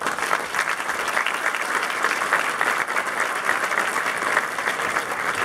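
Audience applauding: many people clapping at once. The applause starts suddenly and holds steady.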